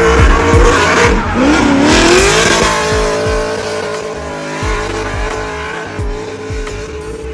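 LS V8 engine in a drifting Mazda Miata revving hard, its pitch dipping and climbing again about a second in and then held high, with tyres squealing. A thumping music beat runs underneath.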